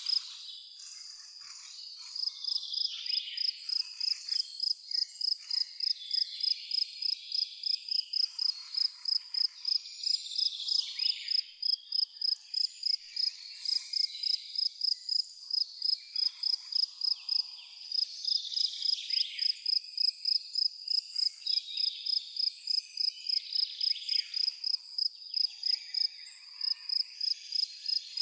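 A cricket chirping in a steady, even rhythm of about three to four high-pitched chirps a second. Softer, irregular calls lower in pitch come and go behind it.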